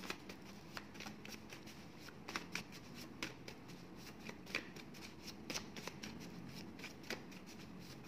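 A small deck of paper word cards shuffled by hand, overhand: a quiet, irregular run of soft card flicks and taps.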